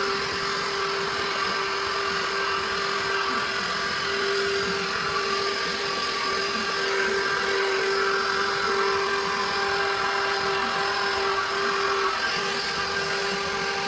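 Window-cleaning robot's suction motor running steadily: a constant hum with an even whooshing hiss.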